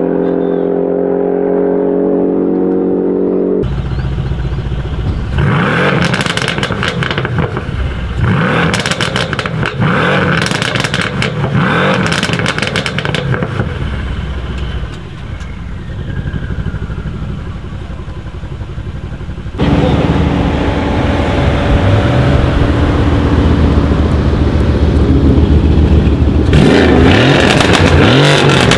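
Car engines idling steadily, then a Mercedes-AMG C63 coupe's twin-turbo V8 revved again and again in short blips with sharp crackles between them. After that a Mercedes-AMG C63 estate's V8 runs and then pulls away, its revs rising near the end.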